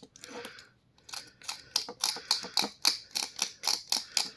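A blade scraping crusted limescale off an immersion water heater rod, in fast even strokes of about six a second that start about a second in.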